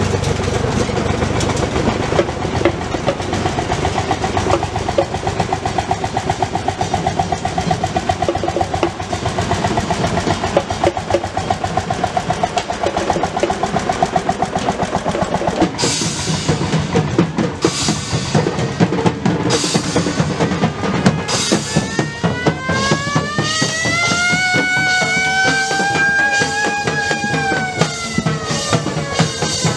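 Background music with a drum kit beat; in the second half a pitched tone rises, holds, then falls back.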